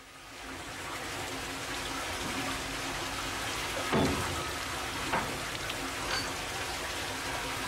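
Water gushing from a canvas hose into a steam locomotive's water tank filler, a steady splashing rush that builds up over the first second. A knock sounds about four seconds in, with lighter knocks after it.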